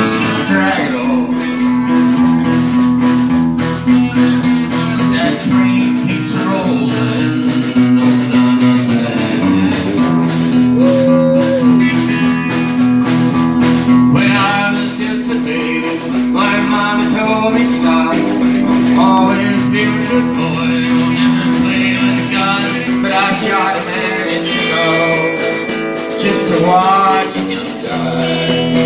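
Live guitar music: an acoustic-electric guitar strummed in a steady rhythm, with a second, electric guitar playing lead lines with bent notes over it.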